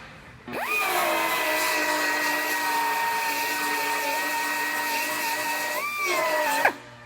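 Handheld power tool used to cut out a car's rear body panel spins up to a steady high-pitched whine about half a second in, runs for about six seconds, then winds down sharply with a click near the end.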